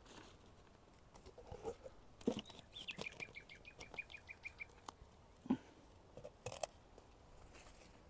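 Faint knocks and rustles of a nucleus hive box being handled as its feeder is removed, with one sharper knock about five and a half seconds in. A bird sings a quick trill of about ten even notes around three seconds in.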